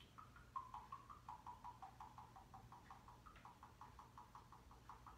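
Vegetable oil glugging out of a plastic bottle into a glass measuring cup: a faint, quick run of gurgling glugs, about six a second, as air bubbles back into the bottle.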